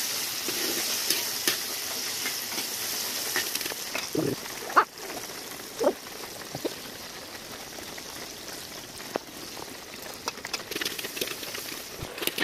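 Sliced onions sizzling as they fry in oil in a large black kadai, stirred with a steel ladle, frying down until they release their oil. The sizzle is strongest in the first few seconds and eases a little after, with a few short scrapes about four to six seconds in.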